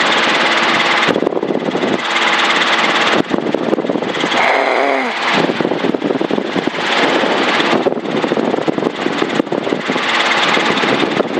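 Training helicopter in flight, heard from the cockpit: steady engine and rotor noise.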